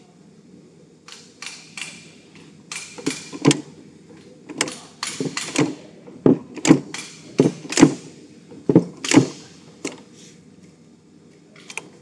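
Manual bench-top cold pressure welding machine worked by its hand lever, its dies closing with a dozen or so sharp metallic clacks, often in pairs, as they press and upset the ends of a 1.73 mm copper wire to cold-weld them together. The clacks stop about ten seconds in.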